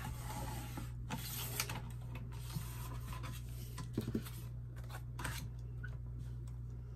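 A stiff laminated card sliding, rubbing and tapping against a plastic paper trimmer as it is lifted off and set back down, with a few light knocks, over a steady low hum.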